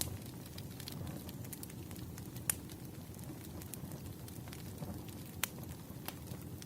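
Wood fire crackling: a low, steady rustle of burning logs, scattered small ticks, and three sharp pops spaced a couple of seconds apart.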